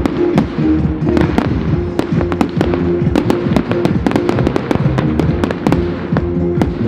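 Aerial firework shells bursting in quick succession, several bangs a second with crackling, over music playing to the display.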